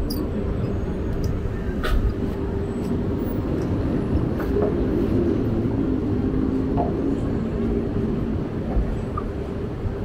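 Steady rumble of car traffic on the bridge roadway below, with a droning hum that swells in the middle and fades again, and a few faint clicks.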